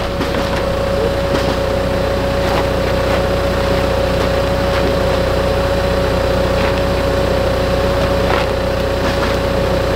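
An engine idling steadily with a constant whine, holding the same pitch throughout. A few faint, short metallic clicks sound over it as a crowbar is worked at a car door.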